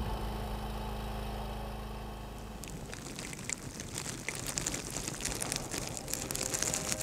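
A steady low hum for the first couple of seconds. Then, from about two and a half seconds in, a dense crackling and clicking of ice-coated tree branches.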